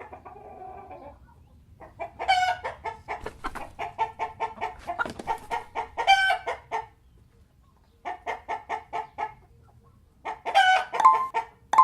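Chickens clucking in quick repeated calls, several a second, with a few longer, louder cackles among them and a short break about seven seconds in.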